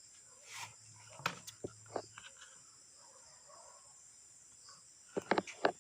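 Crickets or other insects chirring steadily in the background, with a few sharp clicks of the cable tray being cut and a quick run of louder clicks near the end.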